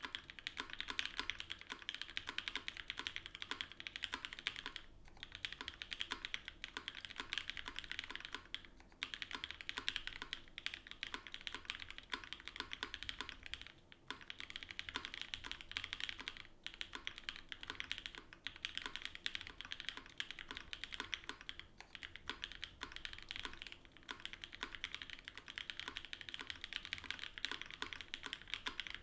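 Fast, continuous typing on an Eniigma Vertigo mechanical keyboard: gasket-mounted aluminium plate, lubed and filmed Frankenswitches (H1 bottoms, Cherry tops, Durock POM stems), lubed Zeal stabilizers and GMK keycaps. It is a dense, even patter of keystrokes, broken by a few brief pauses.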